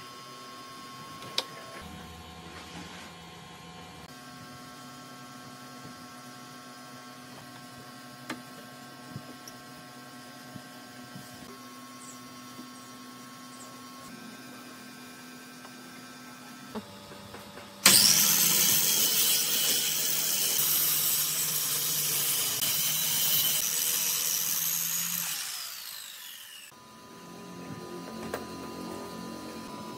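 Handheld power tool cutting wood: about 18 seconds in it starts with a rising whine, runs loud for about eight seconds, then winds down with a falling whine. Before it there is only a low steady hum with a few light clicks and knocks.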